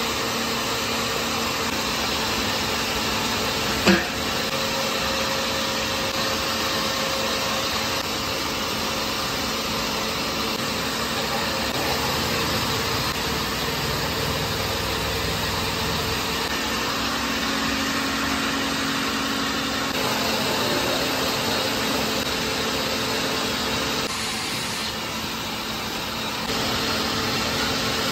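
Steady sizzling of onions and spice paste frying in hot oil in a large kadai, over a constant low hum, with a single sharp knock about four seconds in.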